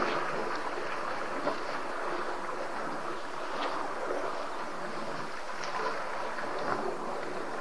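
Steady rushing wind noise on an outdoor webcam microphone, with a few faint, brief high ticks.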